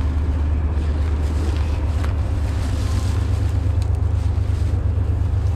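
Steady wind rumbling over the camera microphone.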